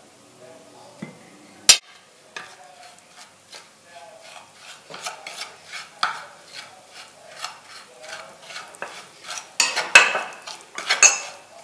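A metal spoon stirring and scraping a paste of ground spices, herbs and oil against a ceramic plate in short repeated strokes. There is a sharp clink about a second and a half in, and the scraping and clinking grow louder near the end.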